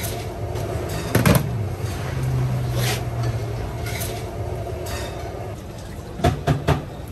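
Commercial kitchen noise: a steady low mechanical hum, with sharp metal clanks about a second in, around three and four seconds, and a quick run of four knocks near the end.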